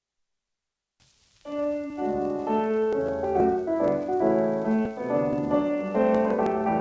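Dead silence for about a second, then faint record hiss, and a piano-led instrumental introduction from an old 78 rpm record begins, with a few faint surface clicks.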